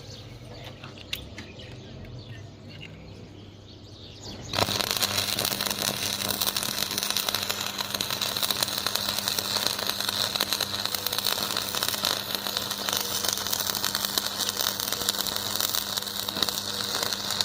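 Electric arc welding: after a few seconds of low hum, the arc strikes about four and a half seconds in and crackles and hisses steadily.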